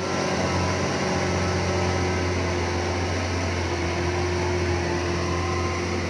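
Diesel engine of a loaded MT60 mining dump truck running steadily: an even low drone with a few steady tones above it.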